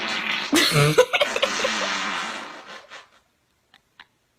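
A long, loud fart, swelling about a second in and trailing off over roughly three seconds, followed by a couple of faint clicks.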